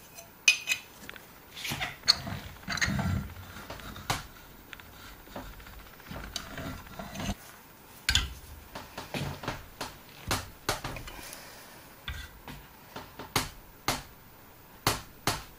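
A hammer tapping thin 25-gauge sheet steel clamped in a bench vise, bending the fold over the jaws: irregular sharp metallic taps, some loud, with scraping and clinking of metal being handled in the first few seconds.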